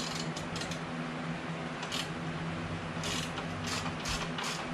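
Hand ratchet turning a bolt on a motorcycle exhaust clamp, loosening it: short bursts of ratchet clicking, one about two seconds in, then a quick run of them about three a second near the end, over a steady low hum.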